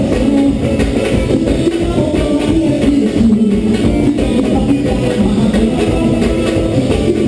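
A live band playing loud carnival music.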